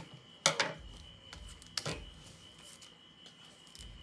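Cardboard product packaging being handled: two sharp clicks or knocks, about a second and a half apart, with a few light ticks between, over a faint steady high-pitched tone.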